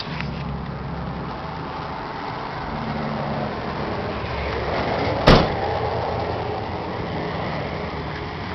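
International 1586 tractor's six-cylinder diesel engine idling steadily, with a single loud bang about five seconds in from the cab door shutting.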